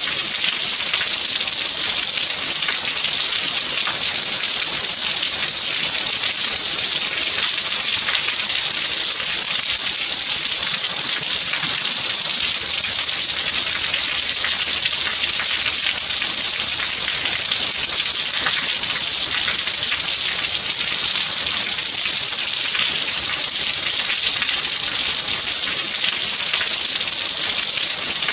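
Steady rain: an even, high hiss of falling water with a fine patter of drops, unchanging throughout.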